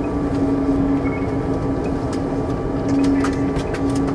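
Boeing 747-400D cabin noise in flight, heard at an upper-deck window seat: a steady rush of engine and airflow noise with a constant low hum running through it.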